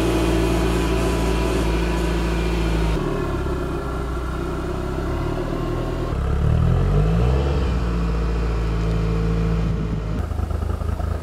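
Toyota MR2 turbo engine idling, with one brief rev about six and a half seconds in. The engine note changes abruptly about three seconds in and again near the end.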